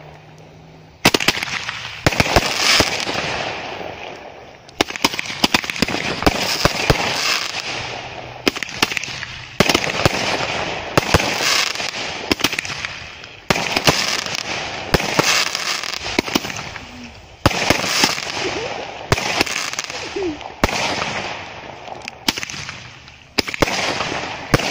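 Four Roman candles firing, a sharp pop about every one to one and a half seconds, each followed by a hissing, crackling tail as the stars burst and fade.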